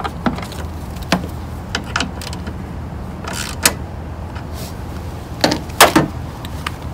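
A series of sharp plastic clicks and knocks as a truck headlight assembly and its wiring connector are handled and pushed into place, the loudest knocks near the end, over a steady low hum.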